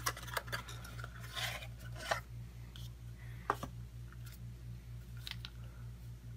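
A Luma WiFi power adapter being slid out of its small cardboard box and handled with its coiled cord: cardboard rubbing and scraping, then a few scattered light clicks and knocks. A steady low hum runs underneath.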